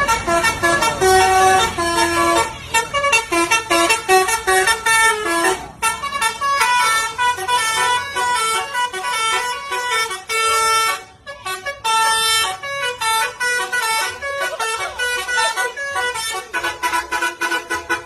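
Telolet horn, a set of electric trumpet horns switched in sequence, playing a fast melody of short notes, with a brief break about six seconds in and another around eleven seconds.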